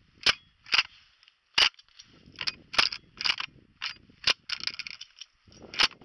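A shotgun being handled and set against a wooden fence post: a run of about a dozen sharp clicks and knocks of metal and wood, with rustling between them.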